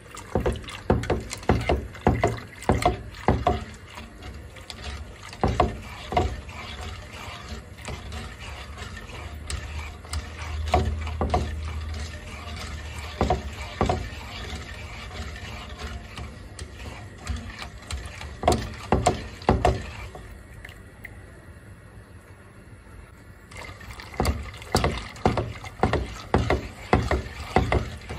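A coated wire whisk beating a milk and egg-yolk mixture in a nonstick pot: its wires click and scrape against the pan in quick runs of strokes, with the liquid sloshing, and short pauses between the runs.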